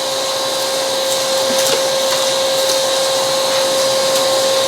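Vacuum cleaner running with a steady high whine, sucking up spilled soil through its stainless steel extension pipe; grit clicks and ticks a few times as it is drawn in.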